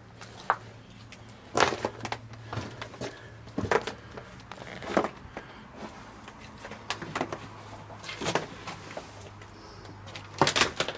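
Footsteps crunching over fallen plaster and broken wood debris on a floor: irregular knocks and crackles every second or so, with a quick cluster near the end, over a faint steady low hum.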